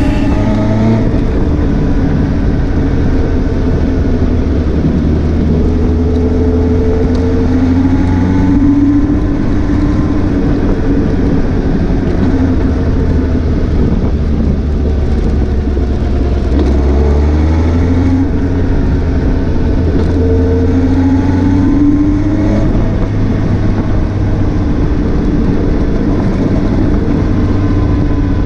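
Suzuki GSX 750 motorcycle engine running under way, its pitch rising and falling several times as it accelerates, eases off and pulls again.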